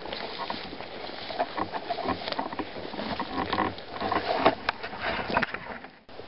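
Rustling and crackling of forest undergrowth and dry leaves, irregular and getting louder, as someone pushes through the plants to a shot hazel grouse. The sound cuts off suddenly near the end.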